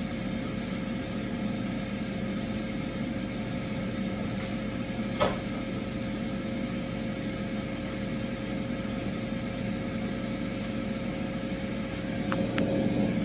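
Steady electrical hum and whir of a running kitchen appliance, with a single sharp click about five seconds in.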